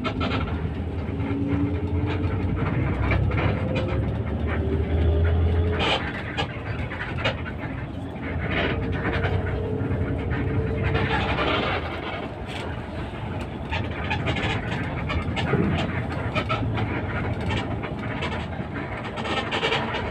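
Inside the cabin of a moving intercity bus: the engine runs under a steady road rumble. Its whine rises in pitch over the first six seconds, then drops, and there are scattered clicks and rattles from the cabin.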